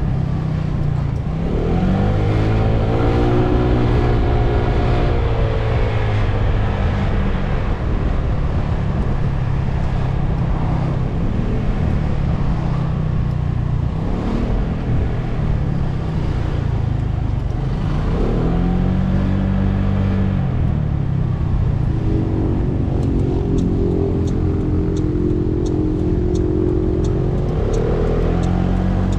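A scooter's single-cylinder engine under way, its pitch rising each time the throttle opens and falling back as it eases off, several times over. Wind rushes over the microphone throughout, and a light, regular ticking comes in near the end.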